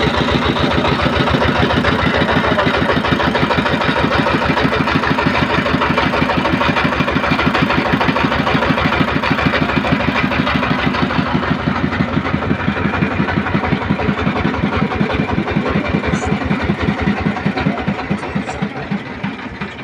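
Engine of a fishing boat running with a steady, rapid chugging beat, growing quieter near the end.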